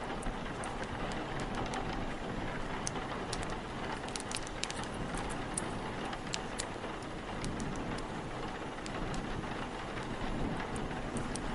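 Steady rain with blustery wind, and a wood fire crackling through it with scattered sharp pops.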